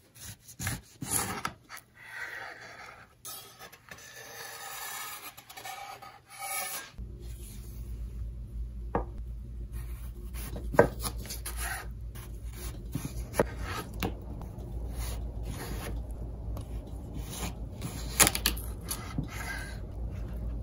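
A kitchen knife slicing tomato and then cucumber on a bamboo cutting board: soft cutting and scraping, with a few sharp knocks of the blade on the board. A low steady hum comes in about a third of the way through.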